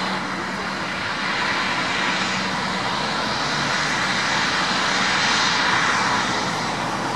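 Bombardier Global Express business jet's two rear-mounted Rolls-Royce BR710 turbofans running at taxi power, a steady jet hiss and rumble that swells a little about five seconds in.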